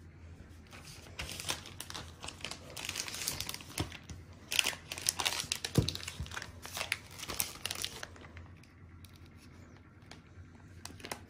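Thin clear plastic bag crinkling and rustling as it is handled, with many sharp crackles, loudest about halfway through and dying away about eight seconds in.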